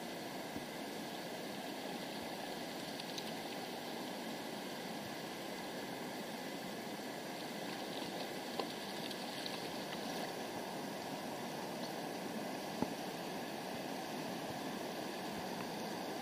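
Shallow river riffle: fast water running over cobbles, a steady rush, with two brief clicks partway through.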